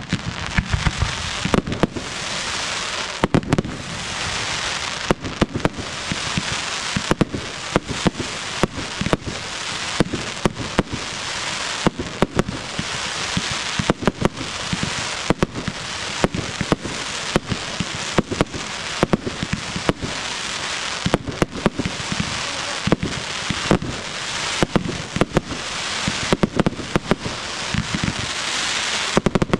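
Fireworks display: aerial shells bursting in a rapid, continuous string of sharp bangs over a steady crackling hiss.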